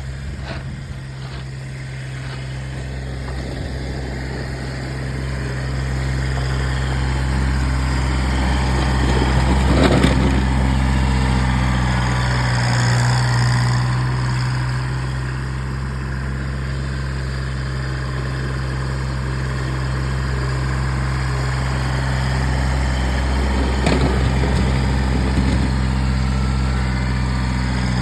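Kubota BX1800 compact tractor's small three-cylinder diesel engine running steadily, with two sharp knocks, one about ten seconds in and one near the end.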